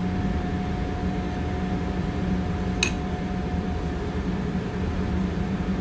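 Steady mechanical hum of commercial kitchen ventilation, with a single light clink of a utensil against a dish about three seconds in.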